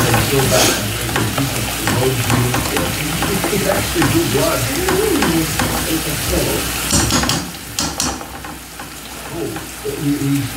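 Pineapple rings frying in brown sugar in a skillet, sizzling, while a fork scrapes and pushes them around the pan. About seven seconds in the stirring stops with a couple of sharp clicks, leaving a quieter sizzle.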